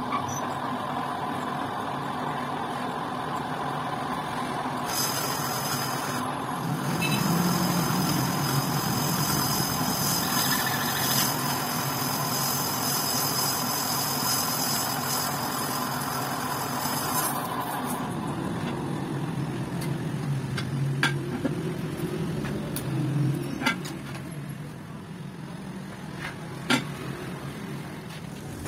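Metal lathe running with a motorcycle wheel spinning in its chuck while the tool turns the inside of the rear brake-drum hub, machining it to take a new sleeve. A high cutting hiss joins about five seconds in and stops around seventeen seconds. After that the noise drops, and a few sharp knocks follow.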